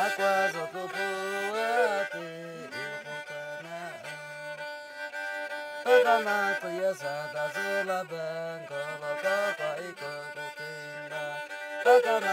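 Homemade bowed stick fiddle with a carved wooden neck, played with a small arched bow. It plays a sliding, wavering melody over a lower held note that changes pitch now and then.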